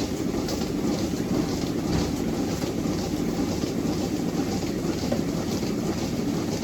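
Machinery running steadily, with a faint regular ticking over it.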